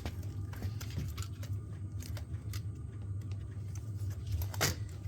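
Light, scattered clicks and taps of fingers working a ribbon cable against its connector inside an open laptop, trying to seat it. One sharper click comes about four and a half seconds in, over a steady low hum.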